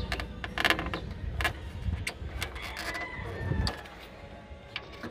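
A stiff old rubber washer hose being worked onto its plastic fitting by hand: a run of small clicks, knocks and scrapes, busiest in the first second and a half, over a low rumble that drops away about three and a half seconds in.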